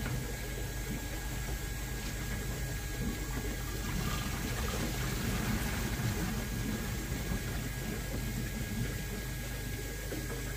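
Koi pond pump running with water flowing through the pipework and filter under a steady low hum, the flow just restored after rubbish was cleared from the pipes.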